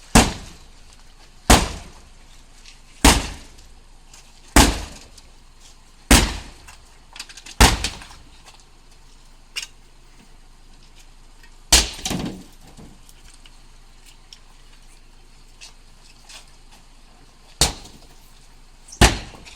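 Sledgehammer blows smashing an old Renault Laguna, with glass breaking. Six heavy strikes come at a steady pace about a second and a half apart, then, after a pause, one more. Two further blows land near the end.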